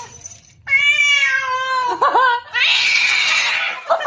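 A cat caterwauling: a long, drawn-out yowl that falls in pitch, a couple of short cries, then a harsh, breathy noise lasting about a second.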